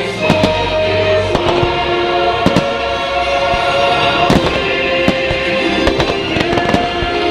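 Fireworks exploding in a string of sharp bangs over music playing with held, sustained notes.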